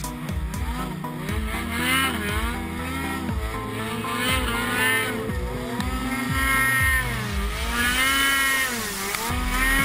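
Ski-Doo E-TEC two-stroke snowmobile engine running under throttle, its pitch rising and falling several times as the rider works the throttle.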